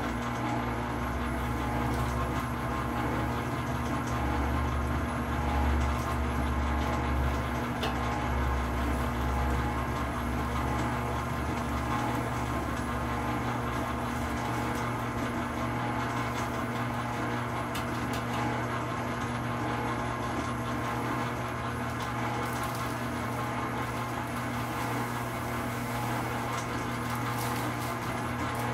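Commercial planetary stand mixer running, its motor giving a steady hum as it mixes, with a few faint clicks.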